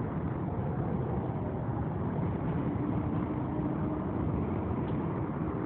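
Steady rumbling noise of a Siemens R160B subway train running on elevated track beside the platform, with a faint steady hum about halfway through.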